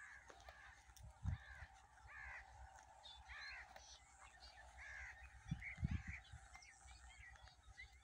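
Birds calling over and over, short repeated calls from several birds at once. A few low thumps come about a second in and again around six seconds in.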